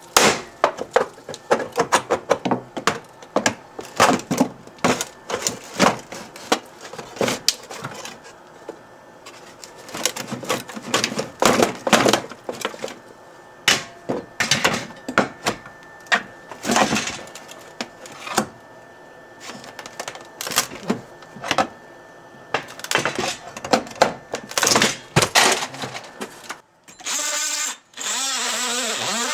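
Old wooden boards and a sheet-metal heater duct being pried and broken loose by hand from below, with many irregular cracks, snaps and clattering knocks. Near the end a cordless power tool runs in two short bursts.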